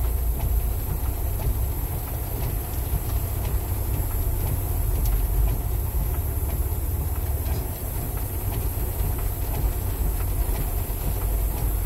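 A truck's engine running low and steady, heard from inside the cab in slow traffic, with heavy rain and the windshield wipers on the glass.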